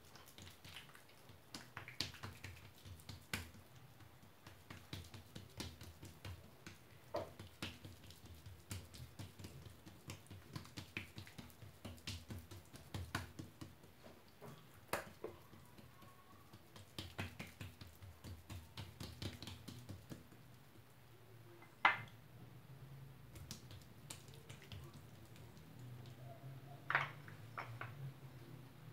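Hands patting, pressing and stretching msemen dough thin on a granite countertop: a run of quick, soft slaps and taps, with two sharper knocks in the last several seconds.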